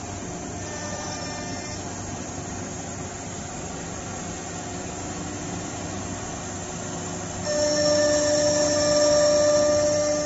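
Multi-head ATC CNC router running, its gantry and spindles giving a steady mechanical noise. About seven and a half seconds in, a louder, steady high whine sets in and holds until near the end.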